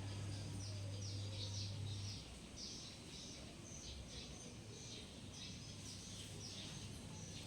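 A bird chirping: a run of short, high, downward-sweeping chirps about twice a second, with a low steady hum that stops about two seconds in.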